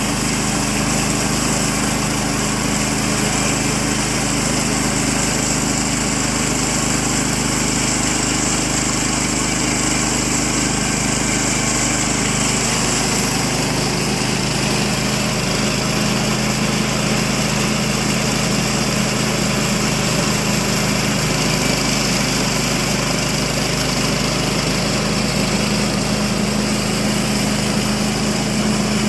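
Small gasoline engine of a Woodland Mills portable band sawmill running steadily under load as the band blade cuts along a pine log, its note shifting slightly about halfway through.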